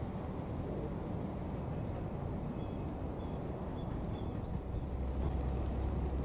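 Outdoor background noise: a steady low rumble that grows louder about five seconds in, with a faint high-pitched chirp repeating about once a second.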